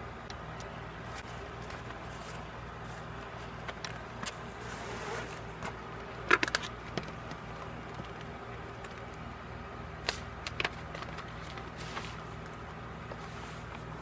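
Items being set down and handled on a desk: scattered light knocks and clatters, with the loudest cluster about six seconds in and another around ten seconds. A steady low hum runs underneath.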